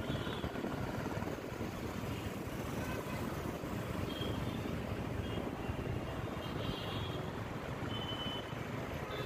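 Steady road and traffic noise heard from inside a moving vehicle: tyre and engine rumble with passing traffic. A few faint, short high tones sound about four, seven and eight seconds in.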